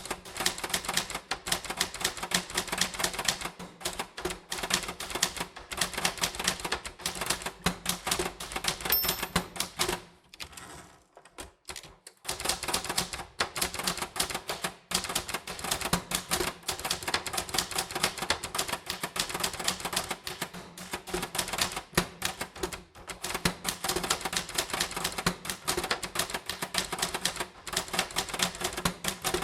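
Typewriter keys striking rapidly and steadily as text is typed, with a short high ring about nine seconds in and a pause of about two seconds before the typing resumes.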